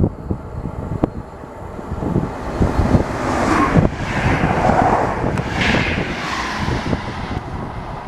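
Two coupled VR Class Sm4 electric commuter train units passing through the halt at speed without stopping: a rush of wheel and air noise that swells over a couple of seconds, peaks, and eases near the end. Wind buffets the microphone throughout.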